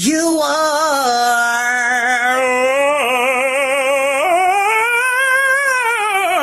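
A solo singing voice holding long notes with a strong vibrato, stepping to new pitches a few times, with no beat behind it.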